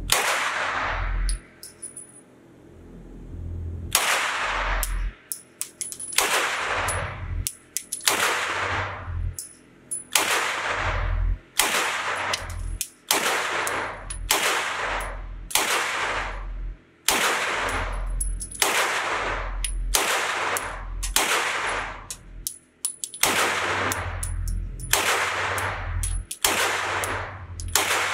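Beretta CX4 Storm 9mm carbine fired in slow, steady semi-automatic shots. There is one shot, a pause of a few seconds, then about one shot a second. Each shot rings out with an echo off the indoor range.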